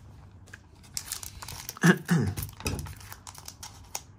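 Foil booster pack wrapper crinkling and rustling as it is picked up and handled, with loud bumps about two seconds in. Near the end, scissors snip into the wrapper.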